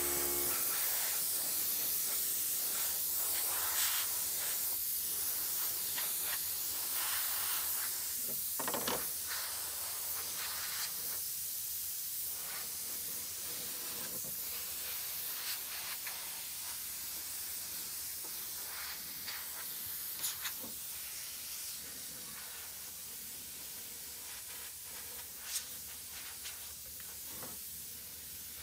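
Gravity-feed compressed-air spray gun hissing steadily as it sprays a finish onto wood, with a few faint clicks; the hiss slowly grows quieter.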